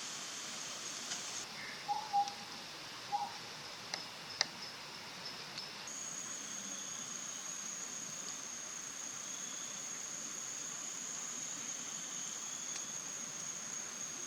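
Collared owlet giving a few short, low whistled notes about two and three seconds in, over a steady high-pitched insect trill. The insect trill settles into one even tone about halfway through. A single sharp click comes a little after the notes.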